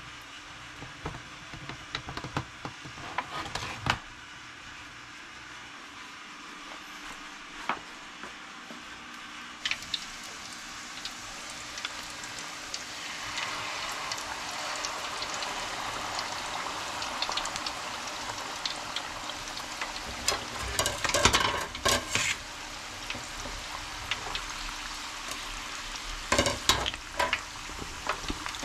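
Battered shrimp frying in hot oil for tempura: a steady sizzle that swells about a third of the way in. Sharp clicks and clatters of utensils come now and then, in clusters near the start, past the middle and near the end.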